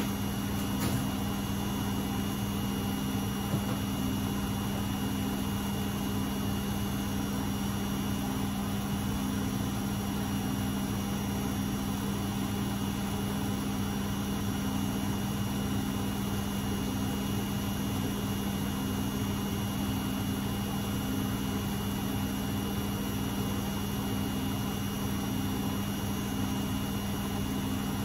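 Beko WMB71642W washing machine running with a steady motor hum and whine, the drum turning at a constant speed without pausing, as in a spin near the end of the cycle.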